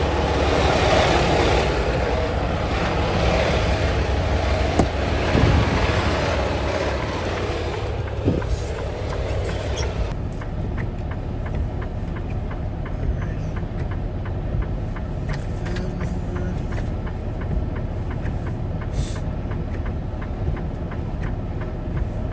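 Semi-truck engine running with a steady low rumble. About ten seconds in the sound changes abruptly: the broad hiss drops away and a faint, regular ticking comes through.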